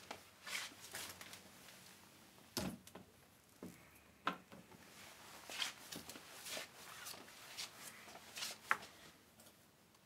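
Scattered light knocks, taps and rustles from handling a clear plexiglass sneeze guard, with a few sharper clicks among them.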